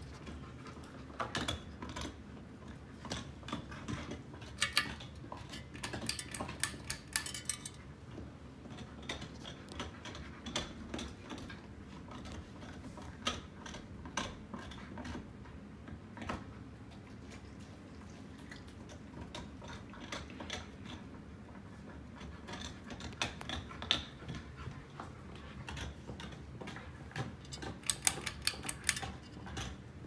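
Ceiling fan running: a steady low hum under irregular bursts of light clicking and rattling.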